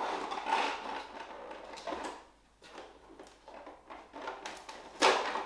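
Rustling and light clicks of board game components being handled, cardboard and plastic-wrapped pieces, with a sharper knock about five seconds in as something is set down.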